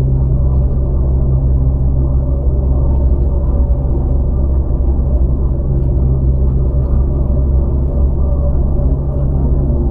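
Land Rover Freelander being driven at a steady pace: an even low rumble of engine and road noise with a deep, steady hum.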